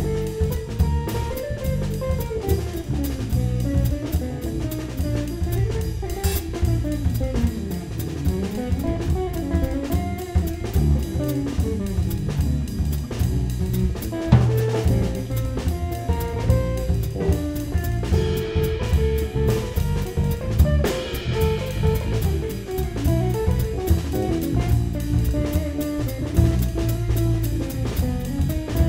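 A live jazz-fusion band plays: electric guitar carries a winding single-note solo line over drum kit and electric bass.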